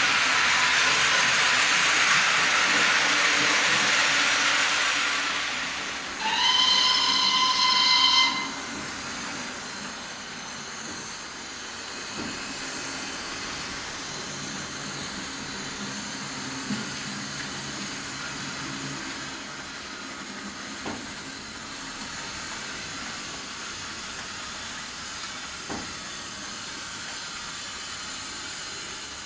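Digital sound of a model Southern H2 Atlantic 4-4-2 steam locomotive, played through the small on-board speaker of an OO gauge model. A loud steam hiss runs for the first six seconds. Then comes one steam whistle blast of about two seconds, with a short rising start, followed by quieter steady running sounds broken by a few single clicks.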